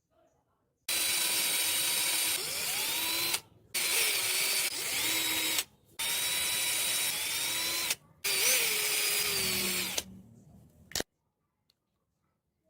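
A small electric motor, drill-like, running in four bursts of about two seconds each with short pauses between. Its whine rises in pitch at the start of each burst as it spins up.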